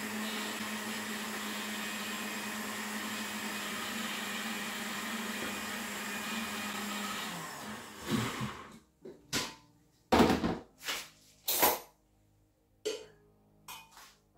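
Countertop blender running steadily, blending black-eyed beans and peppers with a little water into moi moi batter, then switched off about seven seconds in. A series of sharp knocks and clatters follows around the opened blender jar.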